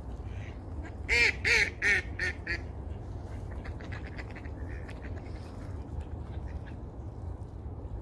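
Duck quacking: a run of about five loud quacks about a second in, then fainter quacks for a couple of seconds more, over a steady low rushing noise.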